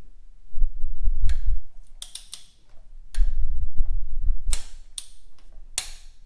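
Click-type torque wrench ratcheting in short strokes, a string of sharp clicks with low thumps from the pulls, as the oil filter housing cap is tightened to 18 ft-lb. A louder click near the end is the wrench breaking over at the set torque.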